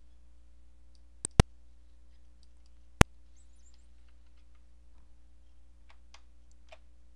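Computer mouse clicks: a quick double click a little over a second in, a single sharp click about three seconds in, and a few faint ticks near the end, over a steady low hum.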